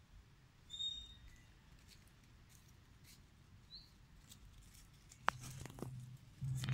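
Faint rustling and light clicks of macaques moving over dry leaf litter, with a short high squeak about a second in and a brief rising chirp near four seconds. A sharp click comes after five seconds, and a low voice starts near the end.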